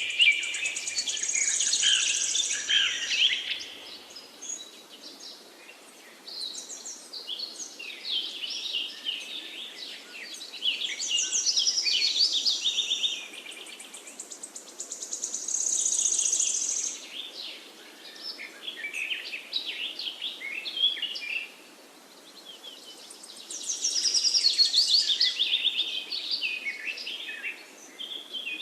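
Forest birds singing: phrases of rapid, high chirps and trills that come back every few seconds, with the loudest song at the start, in the middle and near the end. A faint steady hiss runs underneath.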